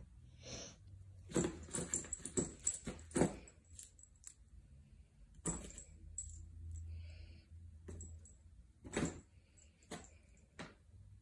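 A cat scrabbling in a nylon play tunnel, the fabric rustling in scattered bursts, with light jingling from a dangled wand toy. The busiest stretch is over the first three seconds, with more bursts later on.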